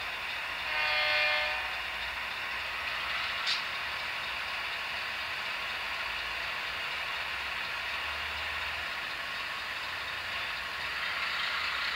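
Sound decoders in HO-scale model GE diesel locomotives (Atlas U30C and U23B with SoundTraxx Tsunami sound): a short air-horn blast about a second in, then the diesel engine sound running steadily through the small onboard speakers. A single sharp click comes about three and a half seconds in.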